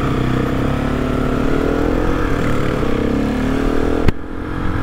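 GasGas SM700 supermoto's single-cylinder engine pulling under acceleration, its note rising steadily, with a sharp click and a brief dip about four seconds in. Its slight whining, grinding note is one the rider now takes to be normal for this model, since an identical bike sounds the same.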